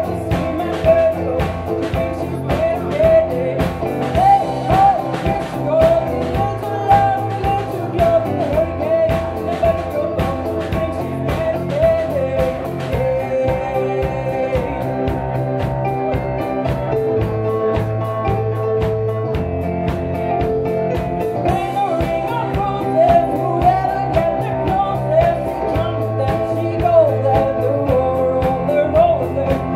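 Live rock band playing: a woman sings the melody over keyboard, guitar, bass and drums.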